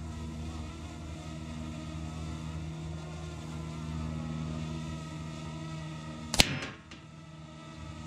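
A single shot from a break-barrel pellet rifle, one sharp crack with a brief tail, about three-quarters of the way in. A steady low drone runs underneath.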